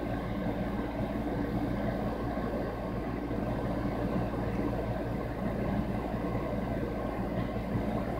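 A steady mechanical hum with a low rumble beneath it, unchanging throughout.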